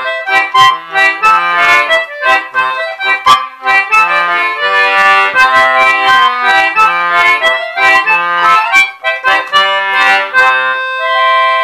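C/G Anglo concertina playing a dance tune in C, with short, bouncy melody notes over chords in a steady rhythm, ending on a held chord near the end.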